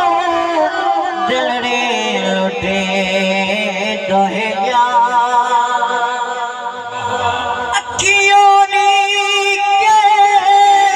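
A man singing a Punjabi kafi into a microphone in long held, wavering notes. About eight seconds in there is a sharp click, and the singing comes back louder on a steady held note.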